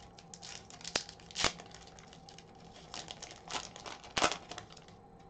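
Foil wrapper of a hockey card pack crinkling and being torn open by hand, a run of sharp crackles with the loudest about a second and a half in and again just after four seconds.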